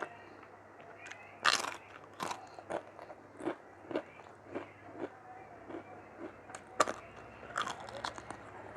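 Close-up mouth sounds of someone eating mutton curry with rice: wet chewing clicks about twice a second, with two louder sharp bites, one about one and a half seconds in and one near seven seconds.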